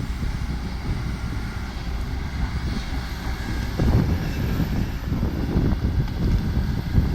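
Heavy diesel dump truck engine running with a steady low rumble.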